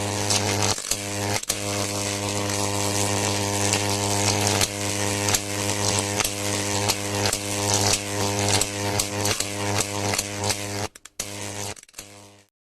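Electrical arcing buzz: a loud, steady mains-frequency hum laced with sharp crackling sparks, breaking off for a moment near the end, returning briefly, then cutting off.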